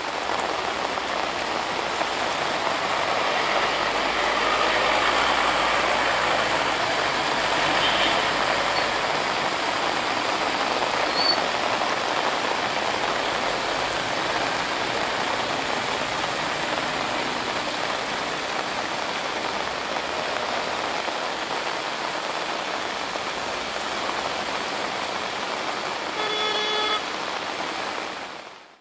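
Steady noise of traffic on a road in heavy rain, with a vehicle horn honking briefly near the end.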